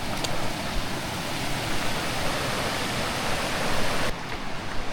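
Steady rushing of flowing creek water, with the hiss easing a little about four seconds in.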